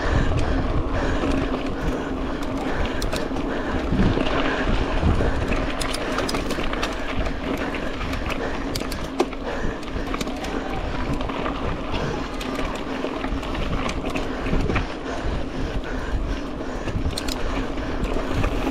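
Mountain bike rolling over a dirt race trail: steady tyre and drivetrain noise, with scattered clicks and rattles over bumps and a low rumble of wind on the microphone.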